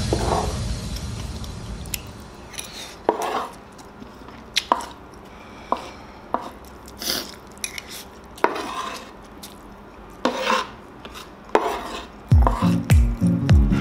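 A metal spoon and chopsticks scraping and tapping on a large bamboo plate, gathering up the last scraps of fried noodles, in scattered short clicks and scrapes about once a second. Background electronic music fades out at the start and comes back with a beat near the end.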